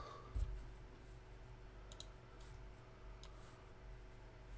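A few faint computer mouse clicks, a second or more apart, over a low steady hum.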